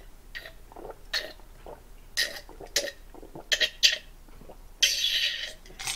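A man drinking from a small glass: a series of short gulping and swallowing sounds, then a sharp breathy exhale lasting under a second near the end.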